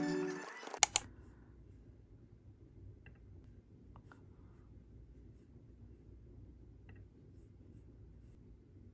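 Background music fades out, then two sharp clicks on a MacBook laptop about a second in, followed by quiet room tone with a few faint clicks.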